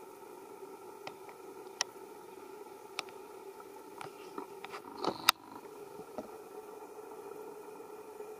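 Scattered soft clicks and taps, with a sharp click about five seconds in, over a steady background hum, as a young macaque handles and eats steamed rice on a stone.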